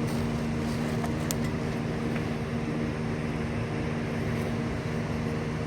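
Steady machine hum from an engine or motor running at an even speed, with a few faint clicks about a second in.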